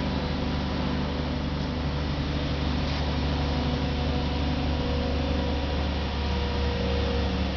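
Mobile crane's engine running at a steady hum, even and unchanging throughout.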